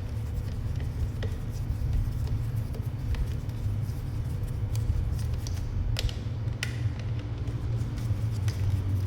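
Scattered small clicks and taps of a plastic camera housing being handled and its cover worked open, over a steady low rumble.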